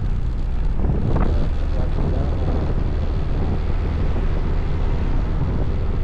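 Motorcycle riding at steady speed: wind rushing over the camera microphone with the engine running underneath.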